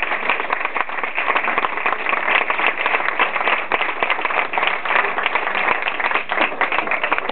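Many hands clapping in a dense, irregular patter of claps.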